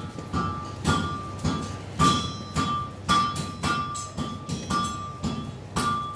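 Blacksmith's hammer striking at an anvil, about two blows a second, each blow ringing with a bright metallic tone.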